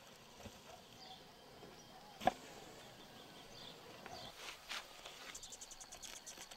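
Faint outdoor farmyard ambience with scattered small knocks and one sharp click a little over two seconds in.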